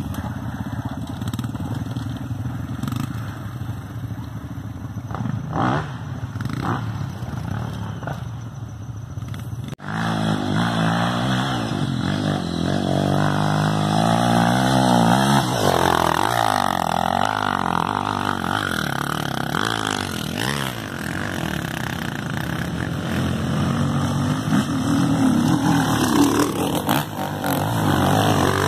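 Off-road motorcycle engines revving on a dirt hill climb. About ten seconds in the sound breaks off sharply, and a louder engine follows, its pitch rising and falling as the throttle is worked.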